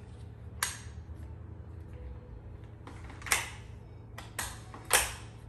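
Maxi-Cosi Zelia stroller carriage being seated onto the frame's mounts: four sharp plastic clicks and knocks, the loudest about three seconds in and near the end.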